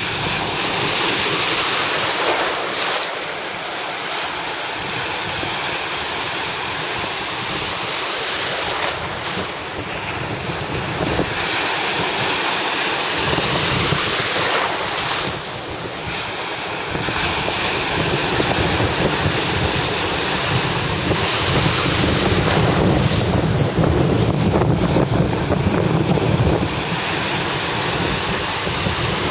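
Small shore-break waves washing and breaking in a steady rush that swells and eases every few seconds, with wind buffeting the microphone.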